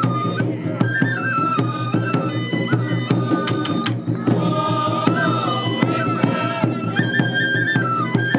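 Japanese lion-dance (shishimai) festival music: a bamboo transverse flute plays a repeating stepwise melody over steady drum strikes.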